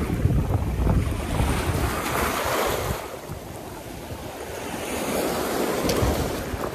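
Small waves washing in over a rocky shoreline, with wind buffeting the microphone. The surf swells loud over the first few seconds, eases off, and builds again near the end.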